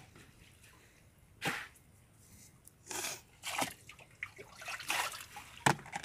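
Water splashing and dripping as a plastic basket is dipped into a boat's water-filled fish hold and lifted out. It comes as a few separate splashes, the sharpest near the end.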